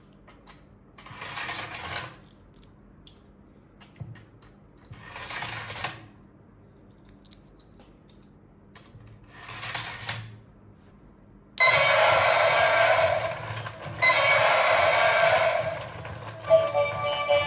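Electric dinosaur slide toy, run from a bench power supply at 4.5 V, switching on about two-thirds of the way in with a sudden loud burst of its electronic sound effects over the running mechanism. Near the end its tinny electronic tune starts. Before that come three short hissing swells, about four seconds apart.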